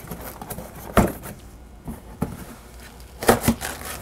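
Box cutter slitting the packing tape along the seam of a cardboard box, with faint scraping and a few sharp knocks on the cardboard, the loudest a pair near the end.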